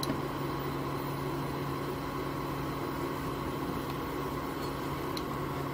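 A steady machine hum with a fixed low drone and a faint higher tone, like a fan running, with a faint click or two.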